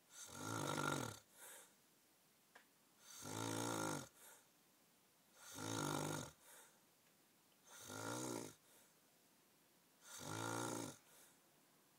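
A man snoring noisily in his sleep: five buzzing snores about a second long, one roughly every two and a half seconds, each followed by a short, softer puff of breath.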